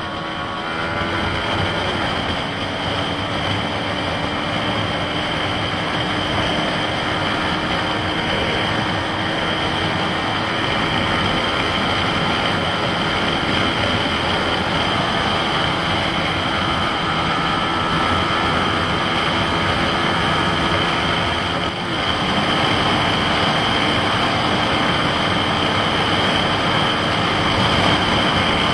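Yamaha MT-15's 155 cc single-cylinder engine running at road speed, heard onboard under a steady rush of wind and road noise. The note dips briefly about three-quarters of the way through and picks straight up again.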